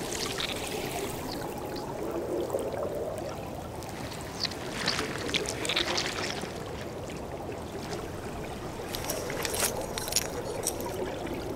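Underwater ambience: a steady low wash of water with faint gurgling, broken by a few small crisp clicks about halfway through and again near the end.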